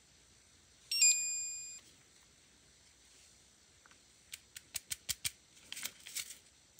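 Gel nail curing lamp beeping about a second in: a short pip, then a tone that fades over under a second. Later there are a quick run of sharp plastic clicks and then a brief rattle, as a clear plastic case of small round rhinestones is handled.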